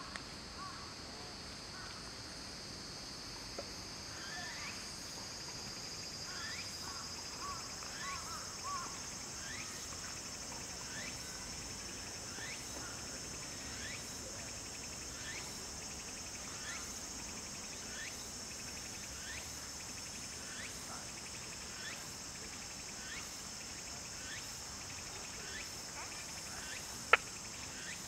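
Evening insect chorus: a steady high-pitched drone, with a short rising chirp repeated about once a second and a few lower chirps in the first seconds. A single sharp click sounds near the end.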